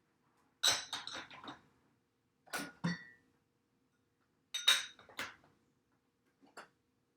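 Cups clinking and clattering as they are set into a dishwasher's top rack, in four short bursts of knocks a second or two apart, the last one faint.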